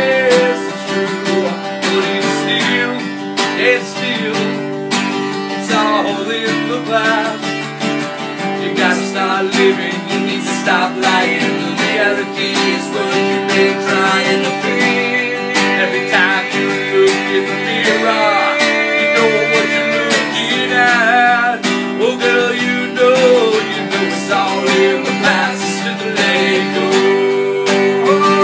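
Acoustic guitar strummed in a steady rhythm while two men sing a song into close microphones.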